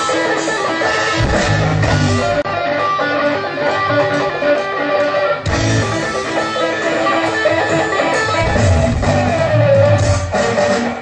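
Music led by guitar, with held notes over a pulsing bass line.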